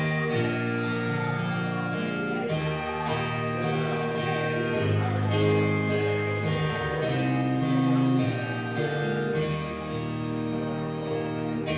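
Instrumental post-worship music with guitar, held chords changing every second or two.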